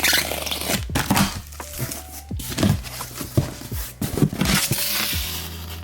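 Packaging being torn and crumpled as a firework cake is unwrapped: irregular crinkling and tearing with a few short knocks as the cake is handled.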